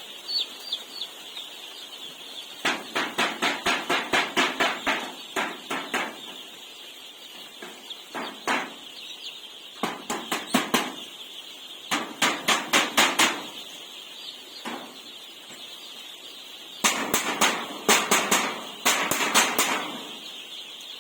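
A steady high chorus of chickens cheeping, broken by several runs of quick sharp taps or knocks, about six a second, that last one to three seconds each.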